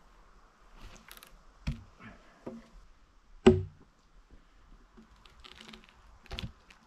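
Sharp wooden knocks and thuds as a log and a hand tool bang against each other while the log is shifted into place: a few single hard knocks, the loudest about a second and a half and three and a half seconds in, with lighter taps between and a short cluster near the end.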